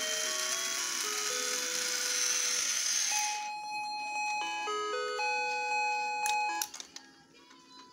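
1993 TSI Christmas Magic toy train's music chip playing a Christmas tune in simple, single electronic beeping notes, over a loud hiss for the first three seconds or so. The tune cuts off with a couple of clicks near the end.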